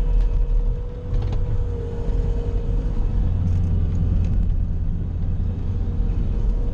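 Bobcat skid-steer engine running steadily while plowing snow: a low, even rumble with a thin steady whine over it.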